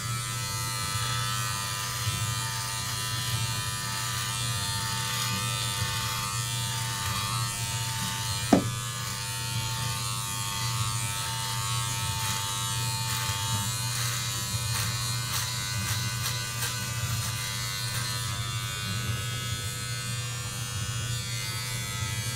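Braun All-in-One Series 5 trimmer running steadily against the scalp, buzzing as it cuts head hair. A single short knock about eight seconds in.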